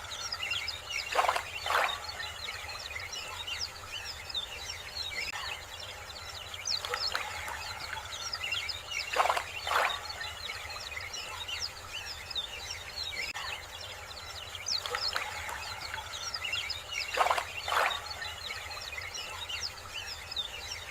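Many small birds chirping continuously in a dense chorus. A louder two-note call sounds three times, about eight seconds apart.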